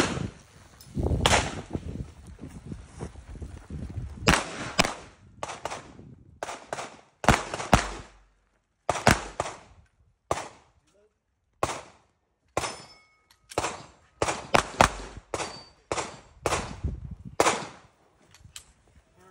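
A string of about twenty gunshots at uneven spacing, some in quick pairs, as a shooter works through a 3-gun stage.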